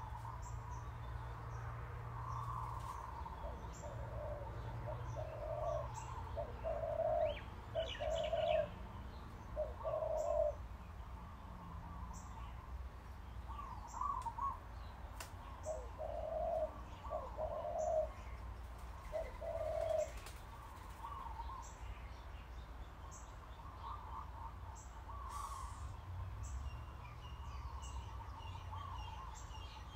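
Birds calling: groups of short, low, hooting notes repeat through the first two-thirds, over steady chirping and brief high tweets.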